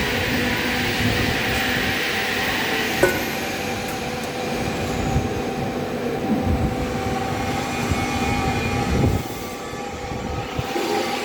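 Industrial machinery running with a steady hum and low rumble, with a sharp click about three seconds in and a few heavier low surges around six and nine seconds.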